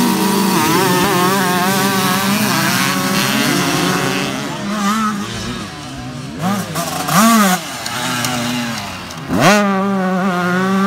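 Suzuki RM144 two-stroke motocross bike engine running hard: a steady high drone at first, then quick rises and drops in pitch as the throttle is blipped from about six seconds in, and one long rising rev near the end.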